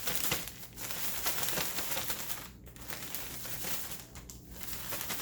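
Plastic bag crinkling and rustling as it is handled, a dense run of small crackles that dips briefly twice.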